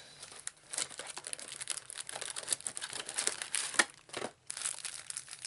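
Trading-card booster pack wrappers crinkling and tearing as packs are ripped open, a dense run of sharp crackles that pauses briefly about four seconds in.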